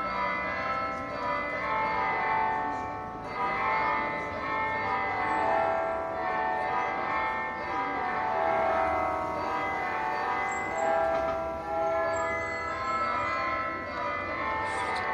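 Church bells ringing: several bells of different pitches struck in turn, their tones overlapping and slowly dying away between strikes.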